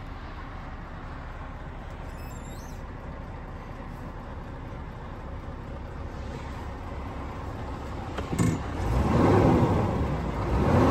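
Scania R520's 16-litre V8 diesel idling, heard from inside the cab. About eight seconds in, after a click, it is revved up and back down, then revved again near the end.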